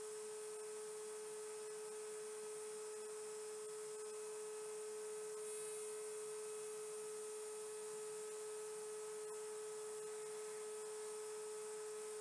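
A steady hum at a single pitch over a faint hiss, unchanging throughout; no tool or handling sounds stand out.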